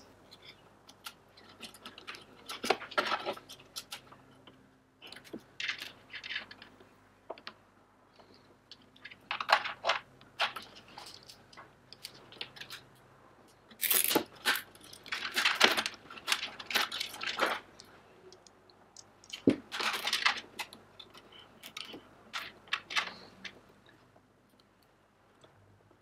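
Plastic cable ties being fed and pulled tight around a kart engine's wiring harness: short bouts of quick ratcheting clicks and rustling handling noise, with quiet gaps between.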